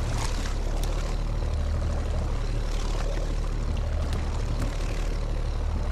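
A small fishing boat's outboard motor running steadily, a low drone, with a haze of wind and water noise over it.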